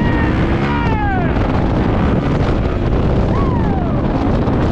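Yamaha dirt bike engine running hard while the bike is wheelied, its pitch falling twice as the revs drop, about a second in and again past three seconds. Heavy wind noise on the microphone from riding.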